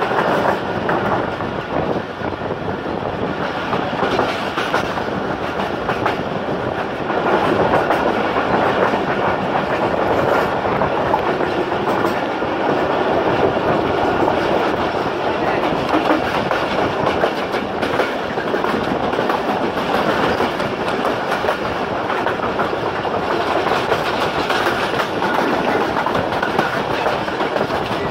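Passenger train running at speed, heard from alongside the moving coach: a steady rush of wheels on the rails and passing air, with the clickety-clack of wheels over rail joints throughout.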